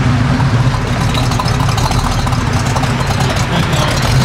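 A car engine idling steadily, with an even low hum from the exhaust.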